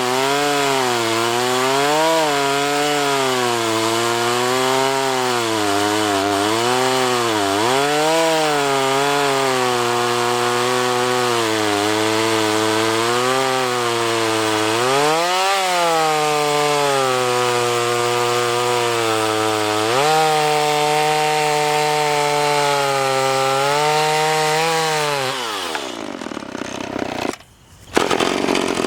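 Tanaka TCS33EB 32 cc two-stroke chainsaw cutting wood at high revs, its engine pitch repeatedly dipping under load and recovering as the chain bites and clears. Near the end the revs drop away steeply, the sound nearly cuts out for a moment, and then it comes back loud.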